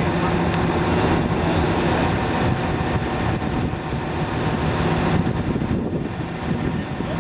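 Crane truck's engine running steadily with a low hum while its boom lifts and positions a heavy load on a chain.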